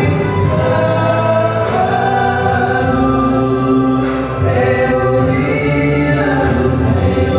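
Male vocal quartet singing a religious song in harmony into microphones, holding long sustained chords.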